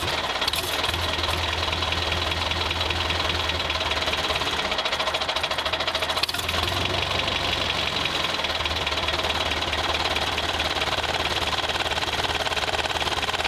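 Tractor engine running steadily just after being started, with a fast, even clattering pulse.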